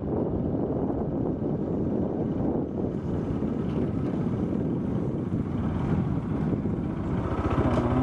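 Motorcycle engine running steadily while riding, mixed with wind rumble on the microphone.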